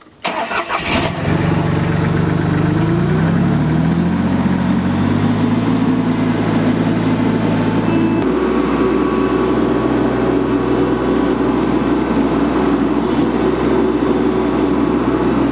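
Summit compact tractor's engine starting up and running, its pitch climbing over the first few seconds as it speeds up, then running steadily; the tone changes suddenly about eight seconds in.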